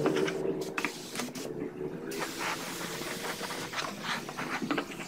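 Gravity-feed paint spray gun hissing as it sprays, stopping and starting in short passes, with two brief breaks in the hiss in the first two seconds.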